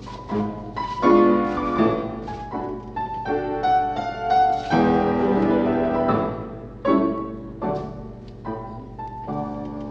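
Piano playing classical-style ballet class accompaniment: a steady run of chords and melodic phrases for a barre exercise.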